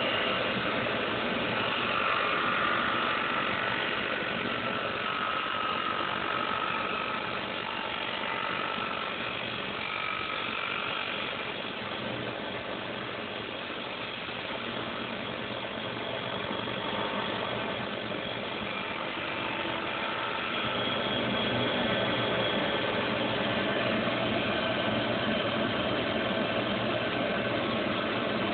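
CNC lathe running, its spindle turning a wooden duck call barrel while the cutting tool shapes it: a steady machine drone with whining tones that come and go as the tool feeds.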